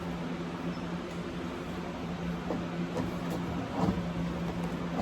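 Steady low hum with a few faint clicks and knocks from plastic and metal headlight-assembly parts being handled and pried apart.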